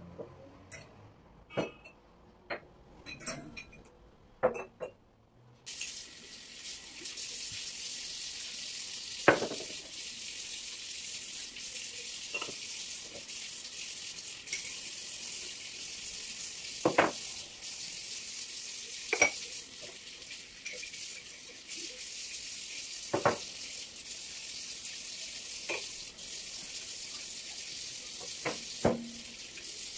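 Kitchen tap turned on about six seconds in and running steadily into the sink, while dishes clink and knock against each other every few seconds as they are washed.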